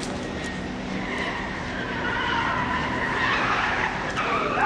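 Ford Escort XR3 driven hard through a cone slalom, its tyres squealing in a wavering whine that swells and bends in pitch over the running engine. The squeal builds from about a second in and rises sharply near the end.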